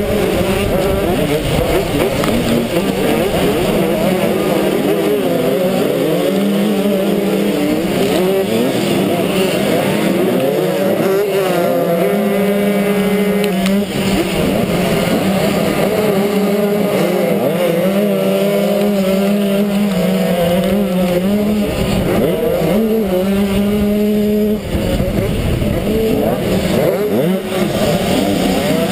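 Motocross bike engines racing together in a pack at full throttle. The nearest engine holds a high, steady note that drops briefly about halfway through and again later, over the rising and falling notes of the other bikes around it.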